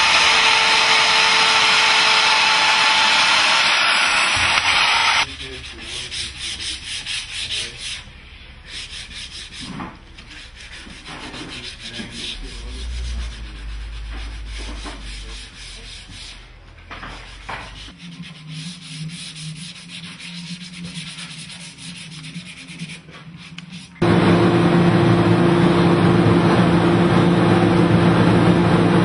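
A handheld wood router cutting a cedar panel, a loud steady whine and rush that cuts off about five seconds in. Then quieter hand work on the wooden box, uneven rubbing and light tapping strokes. About twenty-four seconds in, a spray gun starts hissing loudly over a steady hum.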